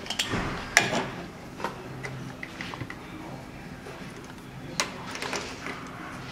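A few sharp clicks and knocks of hand tools and a compression gauge being handled on a bare engine's cylinder head, with quieter ticks between them over a faint steady hum.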